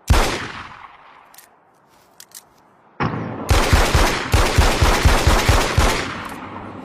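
Beretta 92FS 9mm pistol firing: one shot with a ringing tail, a few faint mechanical clicks, then a rapid string of about a dozen shots over some three seconds, trailing off in echo.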